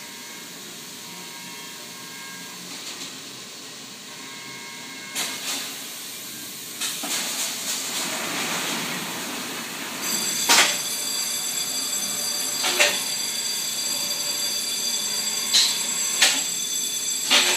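Industrial machine running with a steady hiss. About ten seconds in, a high-pitched whine joins it, with sharp clacks at irregular intervals.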